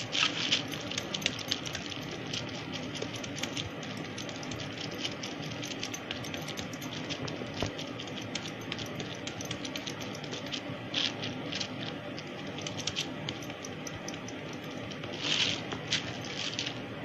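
A thin plastic sheet crinkling and rustling under fingers as dough is patted flat on it, with many small crackles. Louder bursts of crinkling come about 11 s in and again around 15 to 16 s in, as the sheet is handled.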